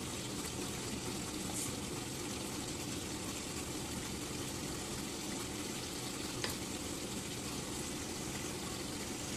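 Shrimp and vegetables cooking in a non-stick frying pan, a steady wet sizzle and bubbling of their juices. One light click comes about six and a half seconds in.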